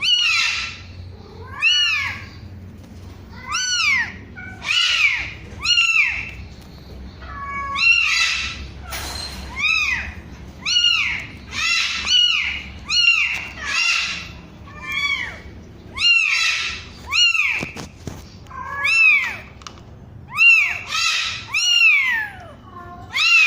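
One-week-old kitten mewing over and over: short high-pitched calls, about one a second, each rising and then falling in pitch.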